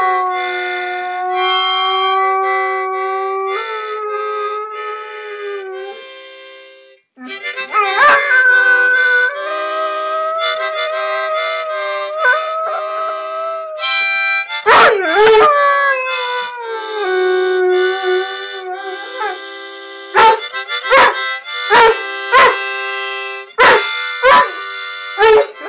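A dog howling along to a harmonica: the harmonica holds steady chords while the dog's long howls slide up and down in pitch over them. The sound drops away briefly about six seconds in, and near the end comes a run of short, sharp sounds.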